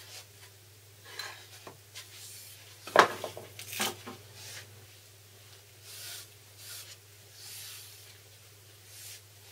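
A small hand plane is set down on the workbench with one sharp knock and a short clatter about three seconds in. This is followed by a few soft swishing strokes as a hand wipes over the wooden block to dampen its fibres.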